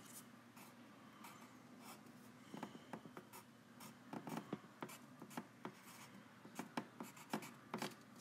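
Faint scratching of a pen writing on paper, in many short, irregular strokes.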